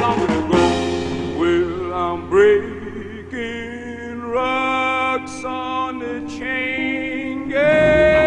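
Live 1960s rhythm-and-blues rock band playing, with a male lead singer singing drawn-out vocal lines over the accompaniment. A long high note begins near the end and is held.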